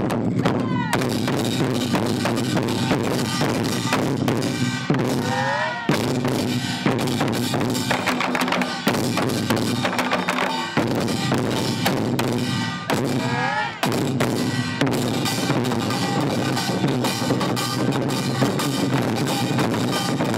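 Ensemble of Korean buk drums, rows of barrel drums on stands along with smaller frame-held drums, struck with sticks in a dense, unbroken rhythm. A few short sliding tones sound over the drumming.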